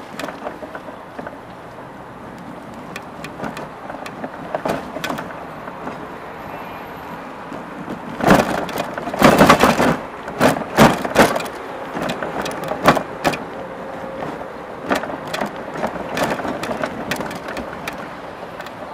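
Street traffic and road noise heard from a moving electric bike, with many sharp knocks and rattles throughout. The knocks are loudest in a dense cluster about eight to eleven seconds in.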